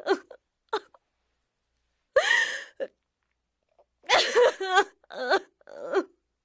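A high-pitched voice making wordless cries in short bursts with pauses between them: gasps and whimpers, then a longer wavering wail a little past halfway.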